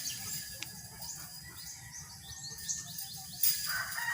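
Small birds chirping in the background, with a sharp click about three and a half seconds in.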